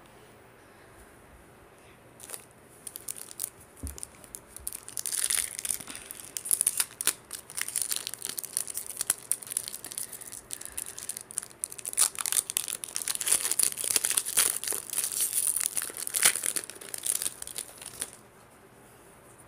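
Wrapper of a Topps Series 2 baseball card pack crinkling and tearing as it is opened by hand: a long run of sharp crackles that starts a couple of seconds in and stops shortly before the end.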